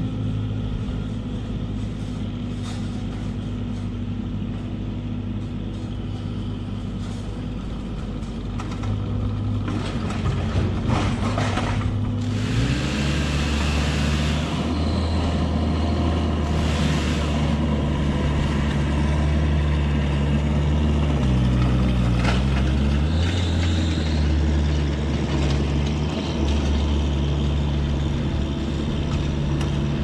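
An engine running steadily at low speed, then revving up to a higher steady speed about twelve seconds in and holding there. A few knocks and clatters sound over it.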